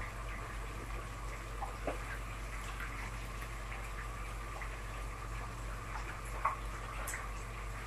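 Faint steady hiss and low hum from a gas stove while an empty aluminium pot heats, with a few light clicks.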